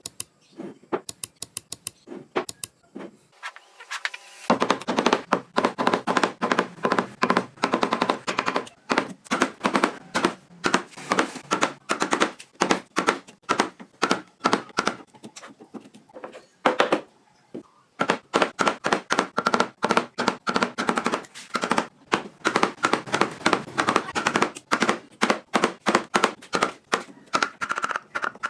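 Rapid series of sharp knocks, about three a second: a mallet or hammer tapping a chisel into wood. A few lighter taps come first, and there is a short pause about two-thirds of the way through.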